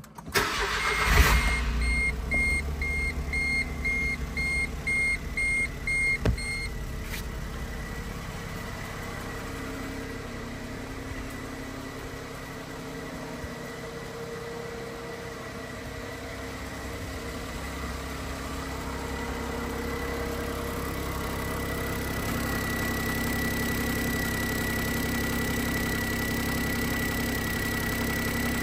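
2012 Smart Fortwo's 1.0-litre three-cylinder engine starting about a second in and then idling steadily, with a warning chime beeping about twice a second for the first few seconds. The idle is louder over the last third.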